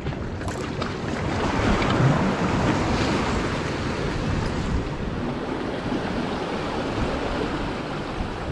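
Waves washing against the rocks of a jetty, with wind buffeting the microphone; the wash swells loudest about two seconds in.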